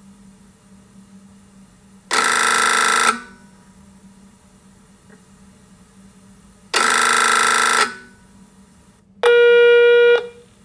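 Telephone ringing in two separate bursts about a second long, several seconds apart. Near the end comes a single steady electronic tone lasting about a second, with a faint steady hum underneath.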